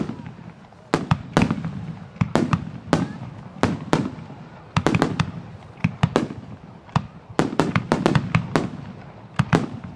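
Aerial firework shells bursting in quick succession, about twenty sharp bangs in ten seconds, some in tight clusters, each trailing off in an echo.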